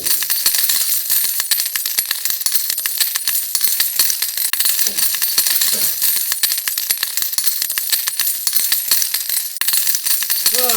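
Coins clattering and jingling in a dense, continuous stream of sharp metallic clinks, such as a seaside amusement arcade's coin machines make.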